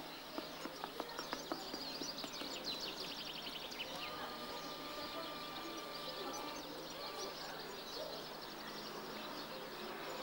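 Birds singing, with a fast trill of high notes about two and a half seconds in, then a held high note lasting about three seconds. A few sharp clicks come in the first second and a half, over a steady hiss.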